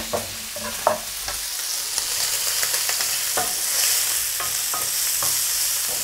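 Diced smoked pork cheek and chopped onion sizzling in oil in a nonstick frying pan, while a wooden spatula stirs them with scattered scrapes and taps. The sizzle grows louder about two seconds in.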